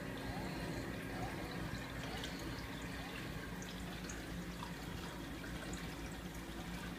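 A running 90-gallon reef aquarium: water trickling and splashing steadily, with small drips and a low, steady pump hum underneath.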